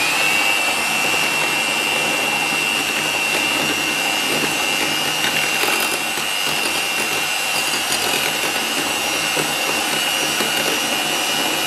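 Electric hand mixer running at a steady speed, its motor giving a constant high whine as the twin beaters whisk a runny cocoa, sugar, cornflour and milk batter in a glass bowl.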